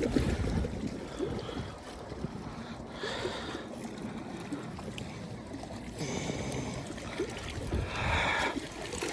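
Water sloshing and splashing at the lake's edge in a few short bouts, over a steady low rumble of wind.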